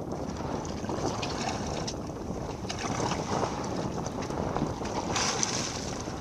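Wind buffeting the microphone over the wash of choppy sea water around a small boat, a steady rushing noise, with a brighter hiss from about five seconds in.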